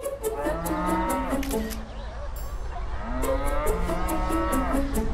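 A cow mooing twice, each call about a second and a half long and falling in pitch.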